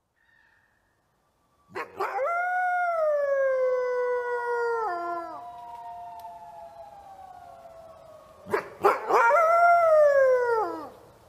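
Wolves howling: two long howls that each fall slowly in pitch, the first overlapped by a second howl trailing on until a few seconds later.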